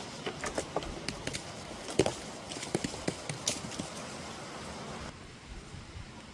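Irregular sharp clicks and snaps, a dozen or so over the first three and a half seconds, the loudest about two seconds in, over a steady hiss.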